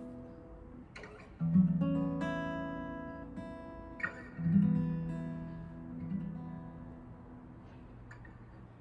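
Acoustic guitar strumming slow chords, each left to ring and fade, the strongest about a second and a half in and again after about four and a half seconds.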